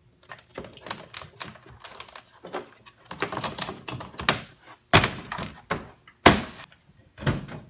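Hands working at a car's interior door panel and its wiring: a busy run of clicks, taps and rustles, then three sharp knocks in the last three seconds.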